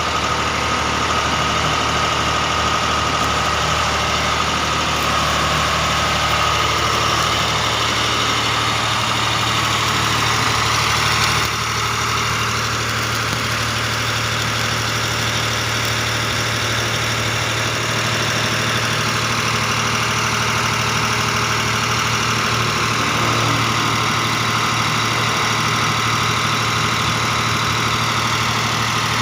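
Engine-driven Miller welding machine running steadily, its engine at a constant idle; the level drops slightly about eleven seconds in.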